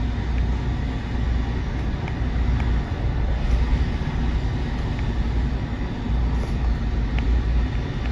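Steady low rumbling background noise, with a few faint light ticks scattered through it.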